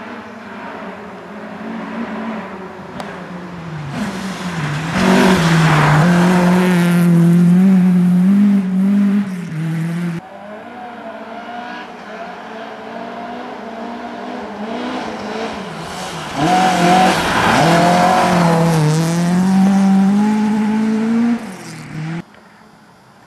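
Two rally cars, one after the other, approaching and passing at full throttle on a snowy stage. Each engine note builds to a loud pass, its pitch climbing and dropping several times, and each cuts off abruptly, the second near the end.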